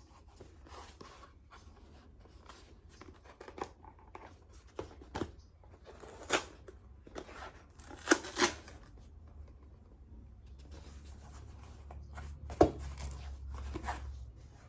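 A package being opened by hand: scattered rustling, snipping and tearing of the packaging, with a few sharp clicks or knocks, the loudest about six, eight and twelve and a half seconds in.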